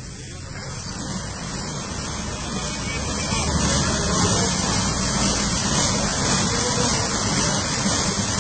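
Automatic car wash running: a steady rushing hiss over a low rumble, building up over the first three seconds and then holding.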